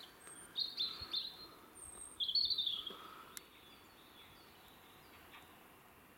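Small songbirds chirping: two quick runs of high, falling notes in the first three seconds, then fainter scattered calls.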